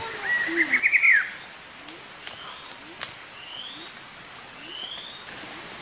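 Forest birdsong: a short, fast warbling trill in the first second, then a bird repeating a short rising whistle about once every second and a bit. A single sharp click about three seconds in, over a faint steady hiss.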